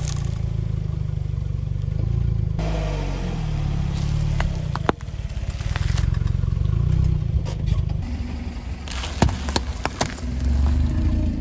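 Car engine running low while a tyre rolls slowly over objects on asphalt, crushing them with sharp cracks and crunches, a few about halfway through and a cluster near the end.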